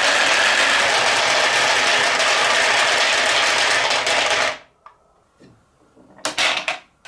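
Dozens of marbles clattering down grooved wooden marble-run tracks and dropping into a plastic toy bus: a dense, continuous rattle of clicks. The rattle dies away abruptly about two-thirds of the way through. A short burst of clicks follows near the end.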